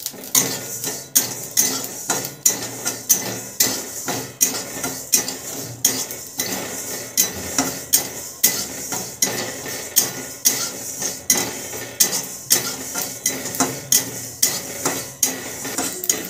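A steel spatula scraping and knocking against a metal kadhai while stirring spice seeds as they dry-roast, in regular strokes about twice a second, with the seeds rustling across the pan.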